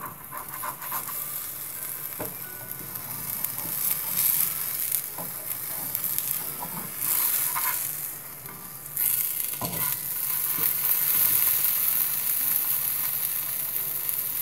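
Rice-flour crepe (patishapta pitha) sizzling in a hot nonstick frying pan, with a few short scrapes of a spatula as it is turned over.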